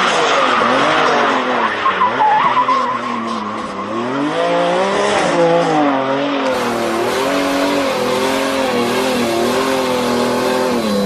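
A car engine revving up and down over and over, its pitch rising and falling in repeated swells, with a loud rushing hiss over it for the first few seconds.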